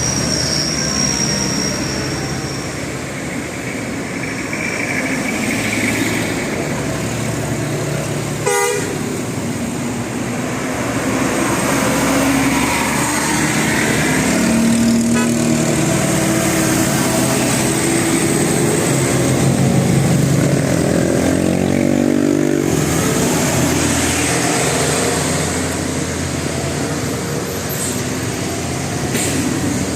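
Road traffic with buses passing, engines and tyres running continuously. A multi-tone 'telolet' bus horn sounds in stepped notes over the traffic, mostly in the second half.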